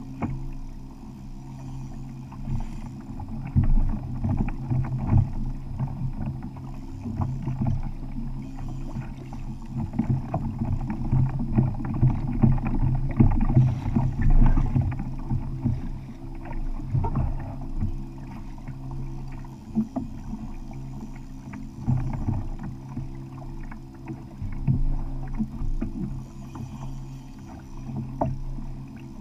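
Water sloshing and slapping against the hull of a Hobie Outback fishing kayak at sea, over a steady low hum. Frequent small knocks and creaks from the boat and gear come through it, with the sloshing swelling and easing irregularly.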